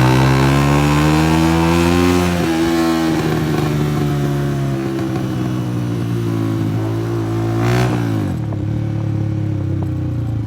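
Honda CG 125's single-cylinder four-stroke engine running loud through a burst silencer, its pitch climbing for about two seconds, dropping, then climbing again and falling off sharply near the end.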